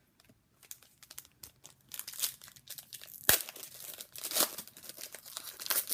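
A foil trading-card pack wrapper being crinkled and torn open, with dense crackling that grows louder about two seconds in and a sharp snap about halfway through.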